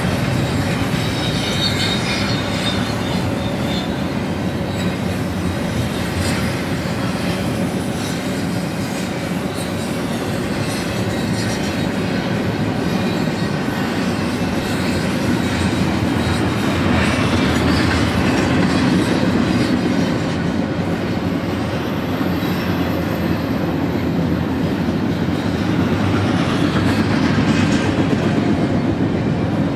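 Double-stack intermodal freight cars of a BNSF container train rolling past, a loud, steady noise of steel wheels running on the rails.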